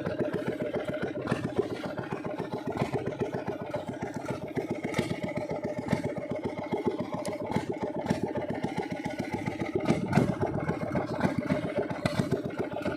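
A small boat engine runs steadily with a fast, even putter.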